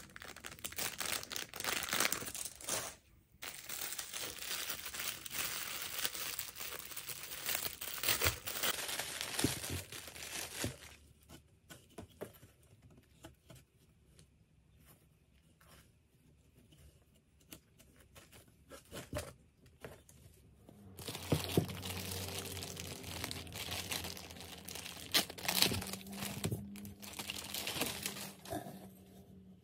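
Thin clear plastic bags crinkling and rustling as packaged items are handled and unwrapped, dense for the first ten seconds. A quieter stretch of soft handling with a few light clicks follows, then crinkling resumes about two thirds of the way in.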